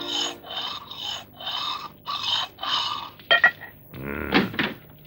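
Axe blade being sharpened: about seven rhythmic scraping strokes, roughly two a second, then a couple of sharp clicks and a short grunt-like vocal sound near the end.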